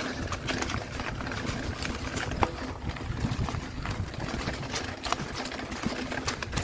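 Mountain bike rolling over a rough dirt and stone track: the tyres crunch over stones and dry leaves and the bike rattles with irregular clicks, over a low wind rumble on the microphone.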